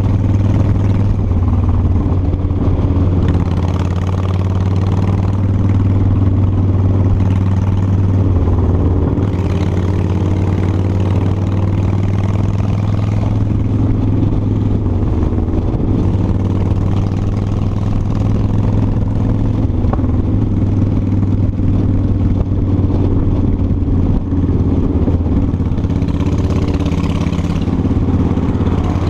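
Motorcycle engine running steadily at cruising speed, heard from the rider's seat, with wind rushing past that swells twice, in the middle and near the end.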